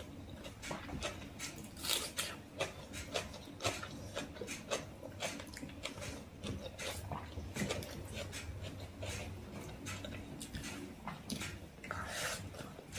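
Close-miked eating of chicken curry and rice by hand: wet chewing, lip smacks and fingers squishing rice on the plate. The sound comes as irregular sharp clicks and smacks.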